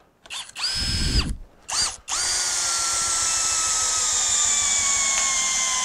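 DCK 20V cordless drill driving a 3-inch, 3/8 lag bolt into a doubled-up 2x4. A few short trigger bursts come first, then one long run of about four seconds whose motor whine slowly drops in pitch as the bolt sinks in under load.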